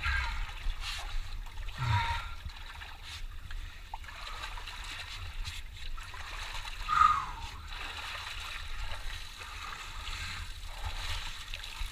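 Legs wading through muddy water, with irregular splashes and sloshing and one louder splash about seven seconds in.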